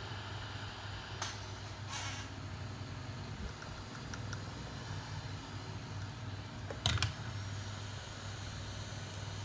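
Steady hum of an electric fan or blower running at the repair bench, with a few short clicks or scrapes, the loudest about seven seconds in.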